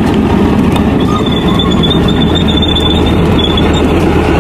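Main battle tank driving past: its engine and tracks run with a dense, steady clatter, and a high squeal from the tracks comes in about a second in.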